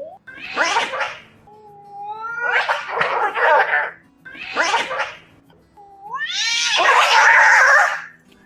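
Two angry cats fighting: wailing yowls that glide up in pitch and break into harsh screeching hisses, in four outbursts, the last the longest and loudest.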